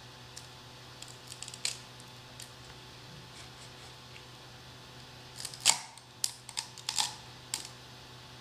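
Metal scraper prying a 3D-printed PLA pistol frame off a Creality Ultra Base glass print bed that has cooled to room temperature to release the part. A few light clicks come first, then a cluster of sharp snaps about five and a half to seven and a half seconds in.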